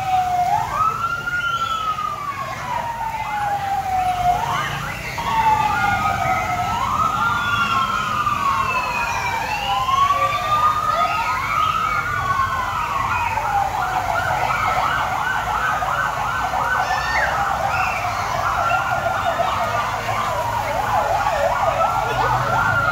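Fire truck siren wailing, its pitch rising quickly and falling slowly over and over. About halfway through it switches to a fast warble for several seconds, then goes back to the slow wail.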